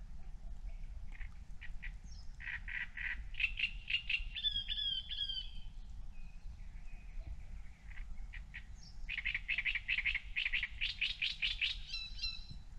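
Songbird singing at night: two long phrases of rapid repeated notes that end in higher whistled flourishes, one starting about a second in and the other about nine seconds in.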